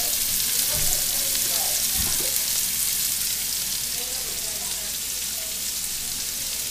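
Turnips frying in bacon fat in a stainless skillet, a steady sizzle, with a couple of soft knocks near the start.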